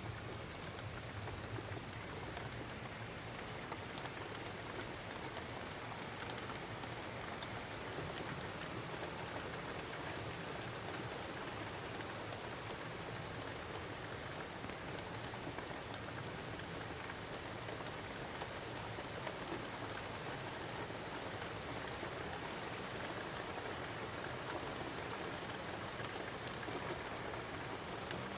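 Heavy rain falling steadily, a dense even hiss with many small drop ticks.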